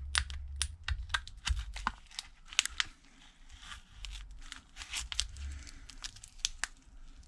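Cracked back glass of a Samsung Galaxy S8 crackling and clicking in irregular sharp snaps as a thin pry tool is worked underneath it, breaking the adhesive.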